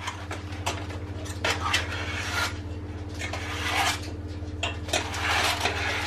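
Baking parchment being unrolled and handled on the counter, rustling and scraping in irregular bursts, with a few light knocks of a metal cake tin.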